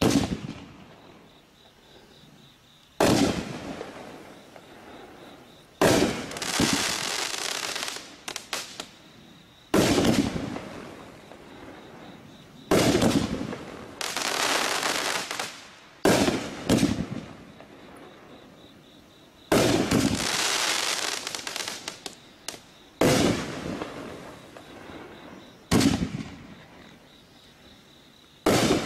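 TNT "America's Best" 500-gram aerial repeater cake firing about ten shots, roughly one every three seconds. Each shot is a sharp bang followed by a couple of seconds of crackling that fades.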